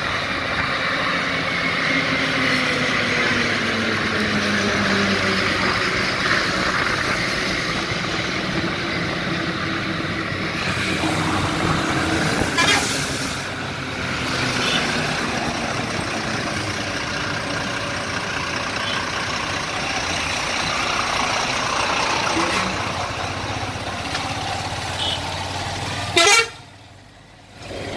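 Traffic noise heard from a moving vehicle, with engine and road noise and vehicle horns honking. An engine note falls in pitch over the first few seconds. A loud bump comes near the end, after which the sound drops sharply.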